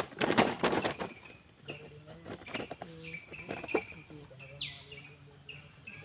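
Birds chirping, with a quick falling chirp about four and a half seconds in, over a thin steady high insect tone. A burst of loud rustling noise fills the first second.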